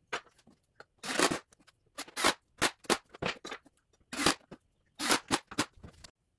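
Irregular knocks, clicks and scrapes of flat-pack cabinet panels and metal drawer-slide hardware being handled and set down on cardboard. There are about a dozen short sounds with brief gaps between them.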